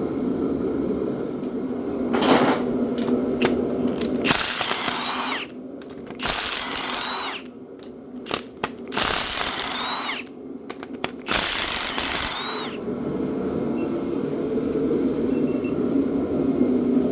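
A power tool runs in four short bursts of about a second each, its whine rising and falling each time, as bolts come out during the teardown of a 3400 V6 top end. A steady hum runs before and after the bursts.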